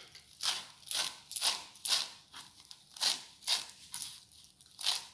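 Kitchen knife chopping fresh coriander leaves on a chopping board, a steady cut about twice a second.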